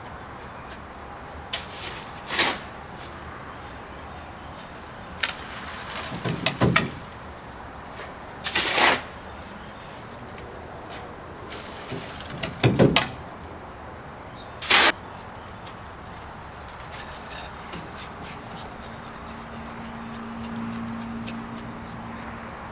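Scattered knocks, clicks and brief scraping noises over a steady low hiss, with several short bursts of about half a second spread through the stretch.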